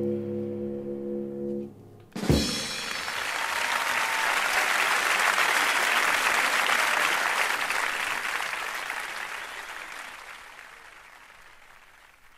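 A jazz quartet's final held chord breaks off, a sharp closing hit lands about two seconds in, and then a live audience applauds. The applause swells and then slowly fades out.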